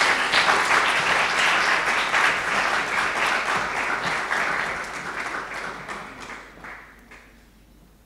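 Audience applauding; the clapping tapers off over the last few seconds and stops shortly before the end.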